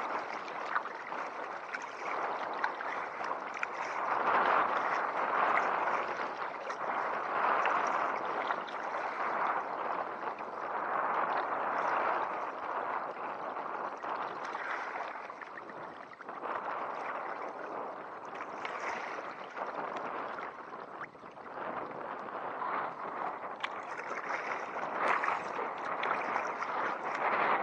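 Water splashing and gurgling around a kayak, swelling and easing every few seconds.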